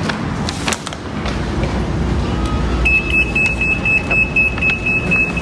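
Store-entrance security gate (anti-theft EAS) alarm sounding a steady high-pitched tone, set off by a security tag left on clothing. It starts about three seconds in.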